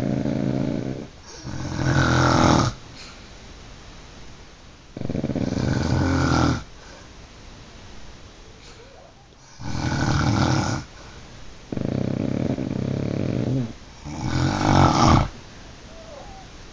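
Loud snoring in repeated rasping breaths of about a second or so each, six in all, several coming in close pairs, with quieter gaps between.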